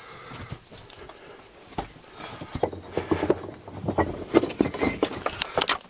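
Loose bricks clunking and scraping under hands and knees as someone crawls over a pile of rubble. The knocks are irregular, sparse at first and coming thick and fast from about two seconds in.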